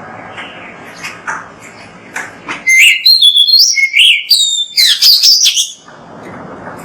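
Oriental magpie-robin (kacer) singing: scattered short chirps, then, about two and a half seconds in, a loud run of clear whistled notes sliding up and down for about three seconds, before the soft chirping resumes over a low hiss.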